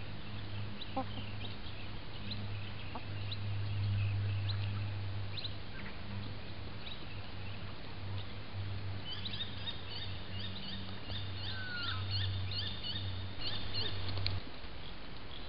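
Birds chirping, with many short calls and a quick repeated series of calls in the second half. Under them runs a steady low hum that cuts off about a second before the end.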